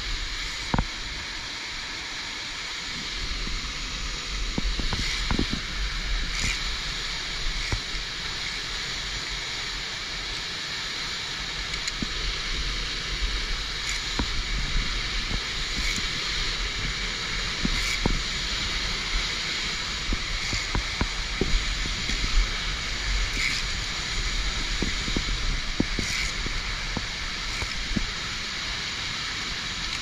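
Steady rushing of a waterfall close by, with a low rumble under it and scattered short clicks and knocks from the climber's carabiners and gloved hands on the via ferrata's steel cable.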